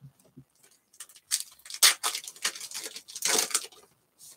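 Wrapper of a 2020 Bowman 1st Edition baseball card pack crinkling and tearing as it is ripped open by hand. The sound comes as a run of sharp rustles, loudest about two seconds in and again a little after three seconds.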